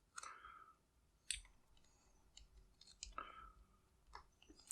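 Faint, scattered metallic clicks and light scrapes of a skinny screwdriver being worked into the plug of a vintage American series 600 padlock, probing to pop the core out.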